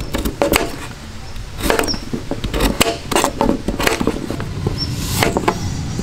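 Kitchen knife cutting raw potatoes into chunks on a cutting board: irregular knocks of the blade going through the potato onto the board. A few short bird chirps come near the end.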